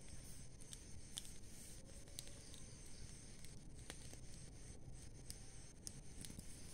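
A pile of dry garden leaves smouldering in glowing embers, giving faint, sparse crackles and ticks, about one a second, over a faint steady hiss.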